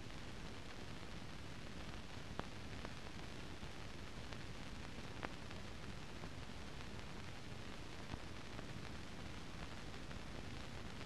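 Steady hiss with three faint clicks spread through it: the noise floor of a silent archive film transfer that has no recorded sound.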